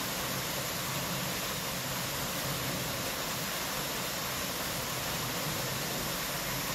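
Narrow waterfall falling over a rock face into a pool: a steady, even rush of water.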